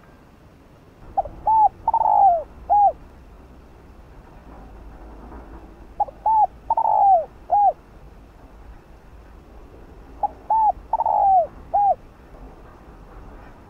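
Spotted dove cooing its song three times, about four and a half seconds apart. Each phrase is a couple of short coos, then a longer coo that falls in pitch, then a last short coo.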